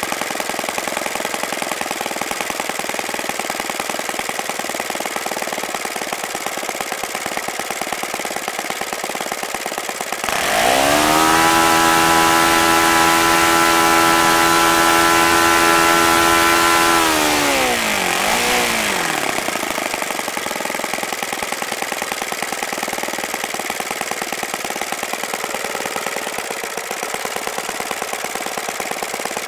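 OS FS-95V four-stroke glow engine swinging a 14x6 propeller: idling steadily, then opened up suddenly about a third of the way in to a high, steady full-throttle run for about six seconds, and throttled back down with a brief wobble in pitch to idle again.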